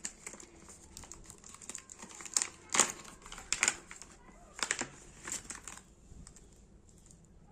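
Packaging crinkling and crackling as it is handled, in irregular bursts that are loudest in the middle and die down near the end.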